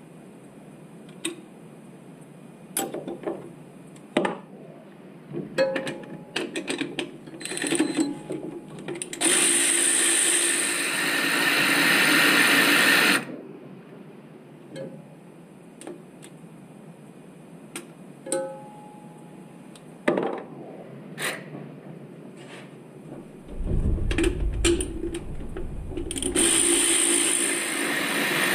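Hand tools and small metal parts clicking and clinking, with a power tool running in two long stretches, about four seconds near the middle and again near the end. A short low rumble comes just before the second run.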